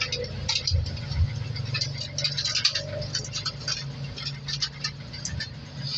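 Aluminium foil crinkling and crackling in quick, irregular bursts as hands press and tuck foil covers over flan molds in a steel pot. A steady low hum runs underneath.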